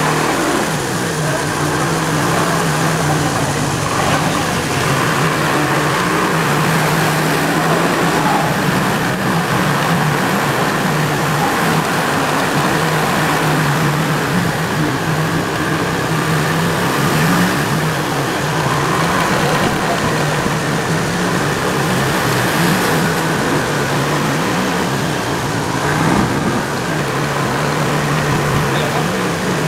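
Motorcycle engine running steadily under way, with a constant rush of road and air noise over it.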